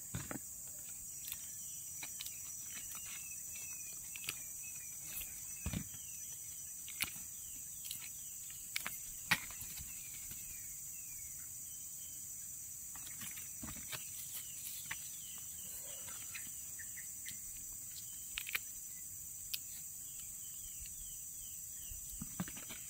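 A steady high insect drone, with small birds chirping in short falling notes now and then, and scattered crackles and snaps from dry leaves and wild oyster mushrooms being picked by hand.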